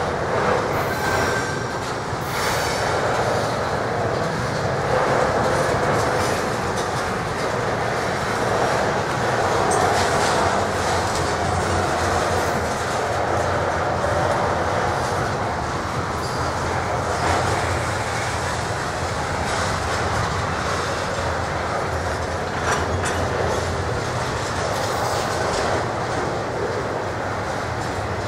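Intermodal freight cars carrying double-stacked containers and trailers rolling past, steel wheels running on the rails in a steady rumble. A few brief high-pitched wheel squeals come and go through it.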